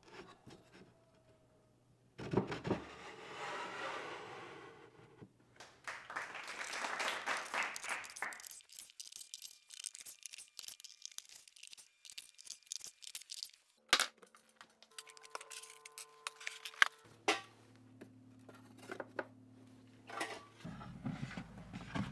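Plywood dividers sliding into dado grooves in a plywood cabinet carcass: two stretches of scraping wood-on-wood, then scattered knocks and clicks as pieces seat. The joints are a snug fit and slide in smoothly. Background music with held notes runs under the second half.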